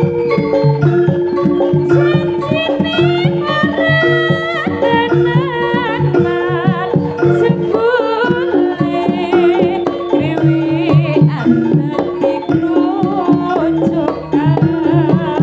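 Javanese jaranan music played live: hand-drum patterns and gong-chime percussion under a held drone and a wavering, ornamented melody line.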